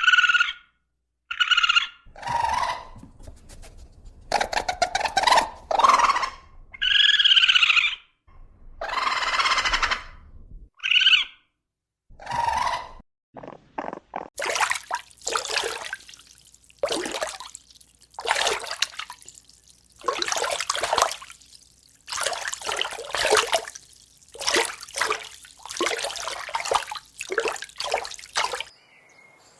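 A series of animal calls: separate calls that bend in pitch, then from about halfway a dense run of harsh, noisy calls that stops shortly before the end.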